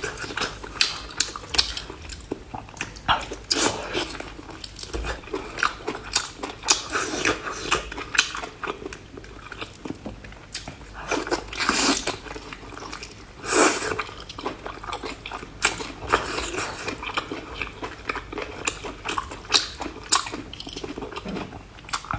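Close-miked chewing and biting into seafood: an irregular stream of crisp crunches and wet mouth sounds, with a couple of louder crunches about halfway through.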